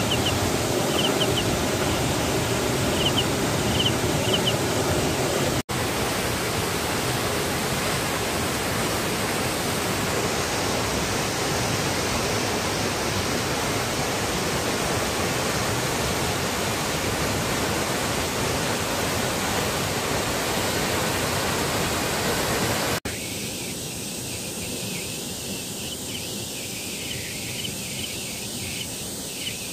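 Waterfall's steady rush of falling water. The sound breaks off for an instant about six seconds in and again near 23 s; after the second break the rush is thinner and quieter. A few faint high chirps sound over it in the first seconds and again near the end.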